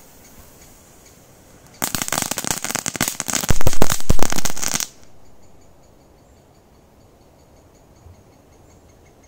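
Crackling firework (a ground crackle effect) going off: about two seconds in, a dense, rapid run of sharp crackles starts, grows loudest near the end of its run and stops abruptly after about three seconds.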